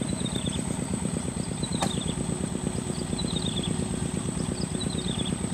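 A small engine running steadily at an even idle-like pace, with a short high chirping that comes back about every second and a half.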